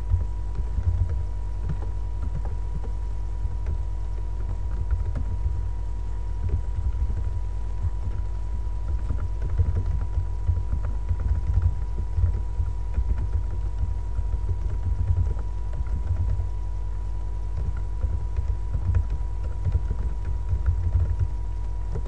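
Computer keyboard being typed on in irregular runs of keystrokes, over a loud steady low hum and a steady high tone.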